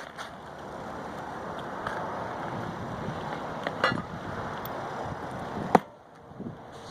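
Steady wind rushing over the microphone, with a few light knocks and one sharper knock about three-quarters of the way through.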